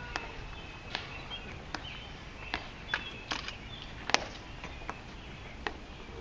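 Ceremonial guards' metal-tapped shoes clicking on stone pavement as they march, one sharp click about every 0.8 seconds. The loudest click comes about four seconds in.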